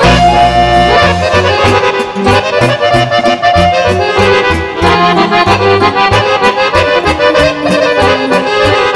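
Two chromatic button accordions playing a lively folk tune together, with a bass line and a steady beat underneath.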